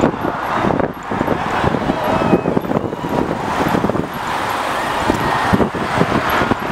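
Road traffic noise from a queue of stopped vehicles, with irregular buffeting rumble on the microphone and faint voices in the background.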